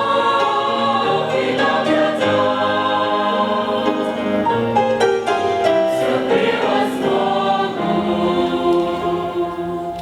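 Choir singing a hymn in several voices, holding a final chord that fades away near the end.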